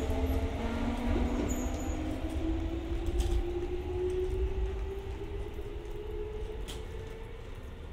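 A Kintetsu electric train pulling out and accelerating away, its traction motors whining in several tones that rise slowly in pitch as the sound fades, over a steady low rumble.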